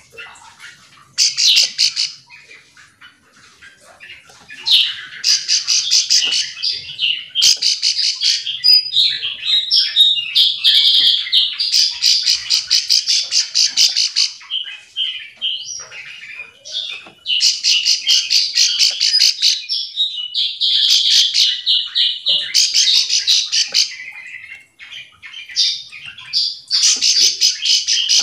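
Ciblek sawah (plain prinia) calling: rapid, buzzy trilled phrases of one to three seconds, repeated with short pauses between them.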